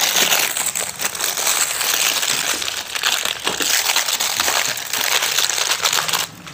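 Clear plastic wrap being pulled off a new air filter and crumpled by hand, a dense continuous crinkling with a short pause near the end.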